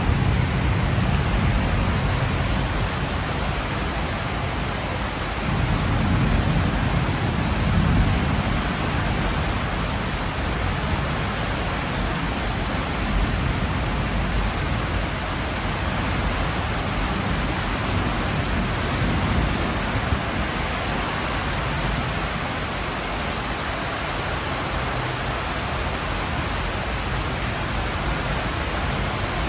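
Heavy rain pouring steadily onto roofs and trees in a hissing downpour. A low rumble swells and fades over the first several seconds before the rain settles to an even roar.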